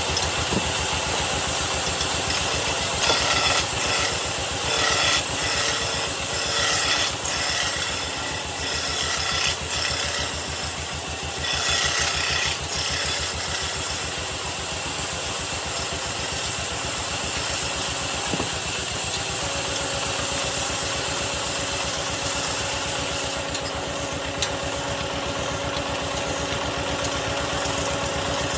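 Wood lathe running steadily with a fast, even pulse as the workpiece turns. In the first half a turning tool cuts into the spinning wood in several short bursts of scraping.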